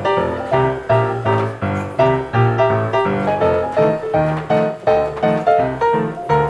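Piano music with a steady, bouncing beat, in the style of an old silent-film soundtrack.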